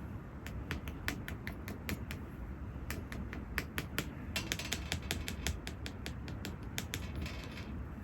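Irregular series of sharp clicks and ticks over a steady low hum, with the clicks coming thicker in the middle of the stretch.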